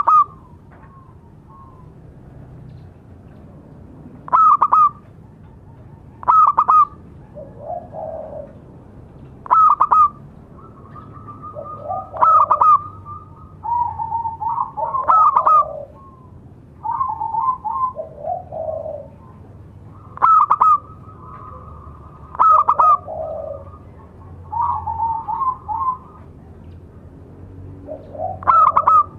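Zebra dove (perkutut) cooing: a loud, sharp call repeated every few seconds, with softer, lower coo phrases in between.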